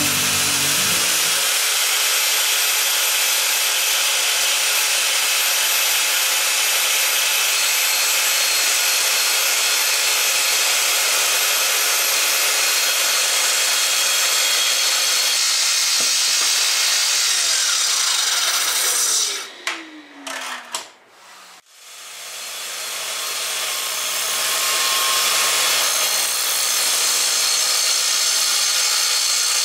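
Festool track saw cutting along a walnut slab, its motor running steadily under load. About two-thirds of the way through it winds down with a falling pitch and stops briefly, then starts up again and runs on steadily.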